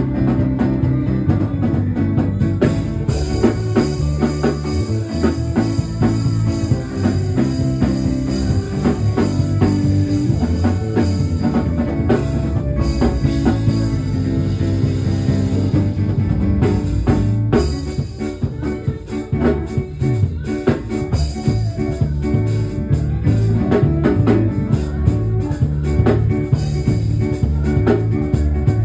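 Instrumental band music with drum kit, guitar and a strong bass line, played with a steady beat and no singing.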